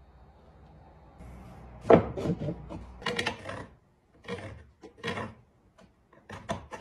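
Scrap wooden boards handled on a wooden workbench: a sharp knock about two seconds in as wood meets wood, then several short scraping, rubbing sounds, and a run of quick small clicks near the end.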